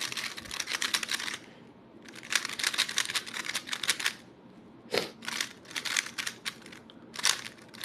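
GAN 16 Max magnetic speedcube being turned fast: rapid runs of clicking plastic layer turns in four bursts, each one to two seconds long, with short pauses between them.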